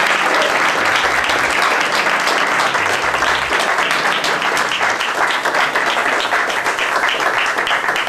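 A crowd applauding steadily, the clapping growing sparser near the end.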